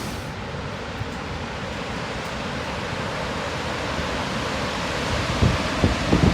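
Steady rushing outdoor noise, with wind buffeting the microphone in several short gusts near the end.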